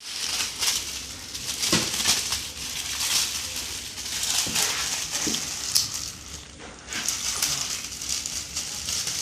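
Irregular crinkling and crackling as frozen meatball sticks are handled in their packaging.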